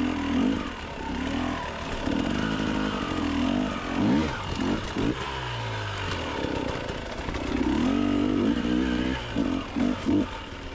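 Enduro motorcycle engine running at low speed, revving up and down in quick blips about four to five seconds in and again near the end.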